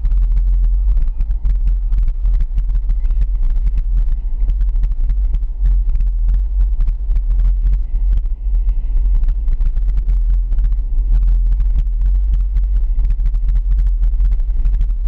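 A vehicle driving steadily on a paved road: a loud, constant low rumble of road and wind noise on the camera's microphone, with frequent small crackles.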